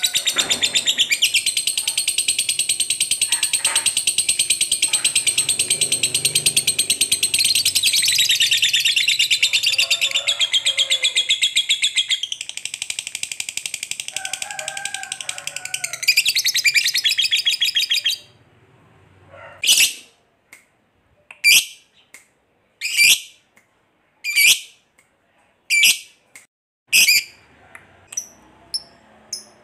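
Fischer's lovebird giving its long 'ngekek' chattering trill, a rapid, high, unbroken chatter lasting about eighteen seconds. It then breaks off into single sharp chirps about every second and a half, with softer chirps near the end.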